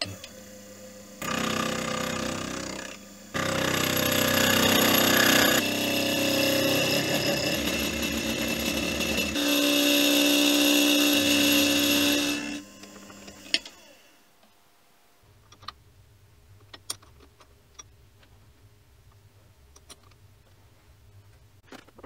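Mini milling machine's end mill cutting a slot through a round metal ring blank held in a vise: the spindle whines and the cut chatters in two runs, a short one of about two seconds and then about nine seconds, stopping about twelve and a half seconds in.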